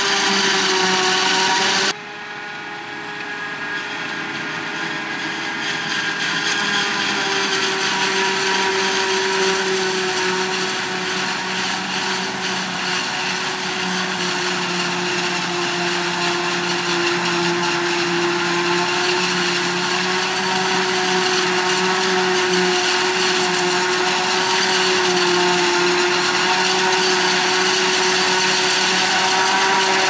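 Claas Jaguar 840 forage harvester chopping maize: a loud, steady high-pitched machine whine from the chopping cylinder and crop blower over a rushing hiss. The sound drops suddenly about two seconds in, then grows louder again over the next several seconds.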